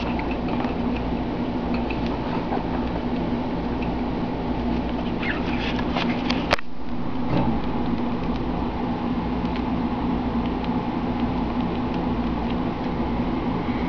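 A litter of rat pups on pelleted bedding: faint, short high squeaks and small rustles, over a steady hum. One sharp click about six and a half seconds in.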